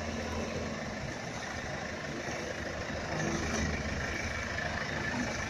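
Motor vehicle engines idling in stalled traffic on a flooded road: a steady low engine hum with an even wash of noise over it.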